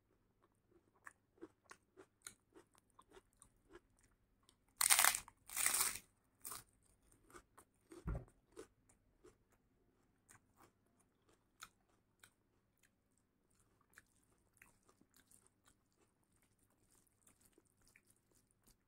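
Close-miked eating of dal chawal and salad by hand: soft chewing and wet mouth clicks throughout, with two loud crunching bites about five seconds in and a short low thump a few seconds later.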